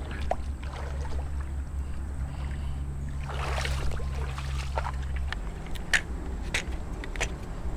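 Shallow creek water splashing and sloshing as someone wades through it, with a splash about three and a half seconds in and a few sharp clicks near the end.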